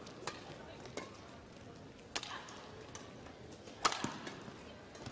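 Badminton rackets striking a shuttlecock during a fast doubles rally: about five sharp hits roughly a second apart, the loudest about four seconds in, over a steady arena murmur.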